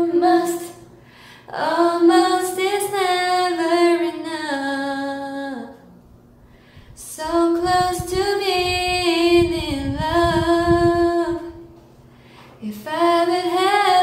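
A woman singing unaccompanied, in phrases of long held notes with short pauses between them.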